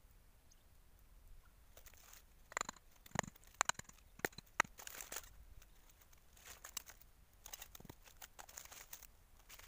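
Dry leaf litter and twigs crackling and rustling in irregular bursts as hands work on the forest floor setting a snare trap. The sharpest snaps come between about two and five seconds in, with softer rustling after.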